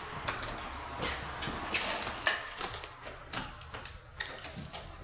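An apartment front door being opened and walked through: scattered clicks and knocks from the handle and door, with rustling as a person steps in.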